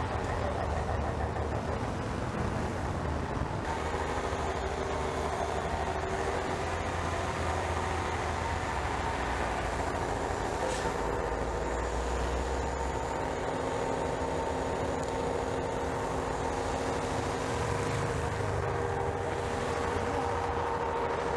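Heavy vehicle's engine running steadily, a low rumble with a steady hum above it.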